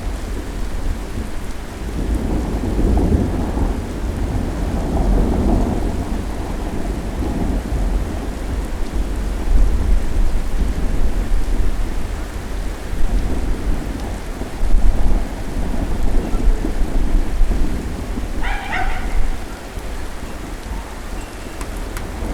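Thunderstorm: steady rain with thunder rumbling low and rolling, swelling and easing several times.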